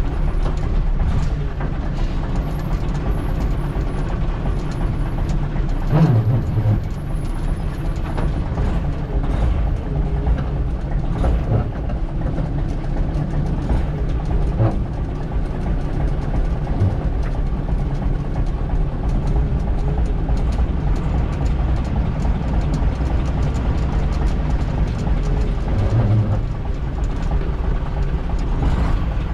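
Leyland PS1/1 bus's diesel engine running under way, heard from inside the cab, a steady low rumble with a few clunks.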